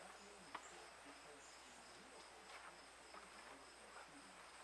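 Near silence: faint outdoor ambience with a steady high-pitched insect trill, faint distant voices and a few light clicks.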